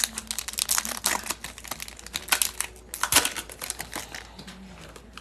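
Plastic wrapper of a trading-card pack crinkling as it is handled and torn open. It is a dense run of crackles that thins to a few scattered clicks near the end.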